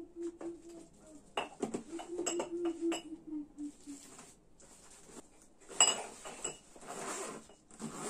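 Glass tumbler clinking several times against containers as it is packed into an insulated cooler bag, with a thin steady whine under the clinks. A sharp knock follows, then the rasp of the bag's zip being drawn.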